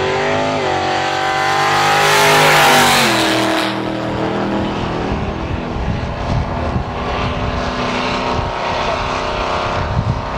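A drag-racing vehicle's engine accelerating hard, its pitch climbing to the loudest point about three seconds in, then dropping as it pulls away. After that, engine noise with a steadier drone continues.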